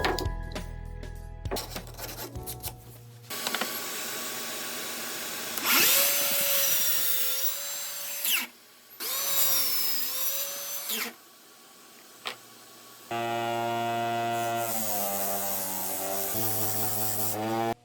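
An electric power tool runs in several long bursts on wood, its motor whine dipping and recovering in pitch as it is loaded.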